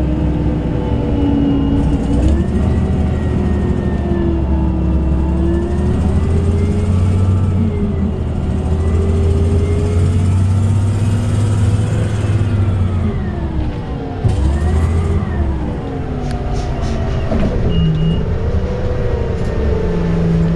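Orion VII CNG transit bus heard from on board while under way: a steady low drivetrain rumble with a whine that rises and falls in pitch as the bus speeds up and slows. A knock about two-thirds of the way through is followed by a few sharp clicks.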